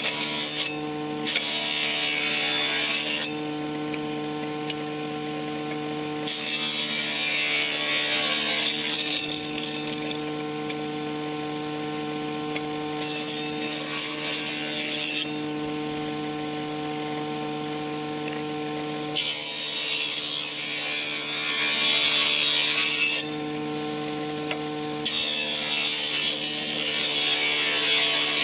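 An electric woodworking power tool running steadily, cutting into wood again and again. Each cut is a loud rasping passage of two to four seconds, with the motor's hum carrying on between cuts.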